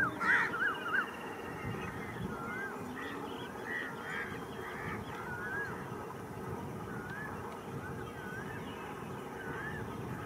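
Birds calling: short whistled notes that rise and fall, a quick run of them in the first second and then one every second or so, over faint steady background noise.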